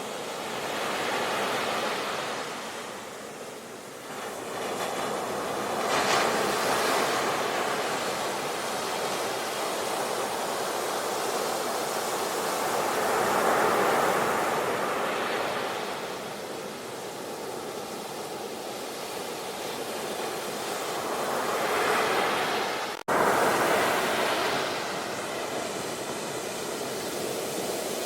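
Ocean surf: waves breaking and washing in, swelling and ebbing every few seconds. There is a sudden short break in the sound about three-quarters of the way through, after which the surf comes straight back.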